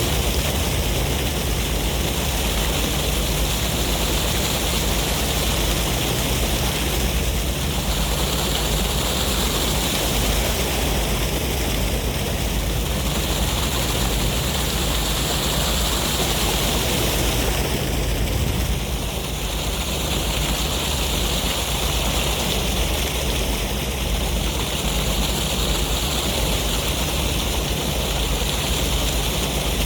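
Sea waves and wind: a steady rushing of surf with a deep wind rumble underneath, swelling and easing every few seconds.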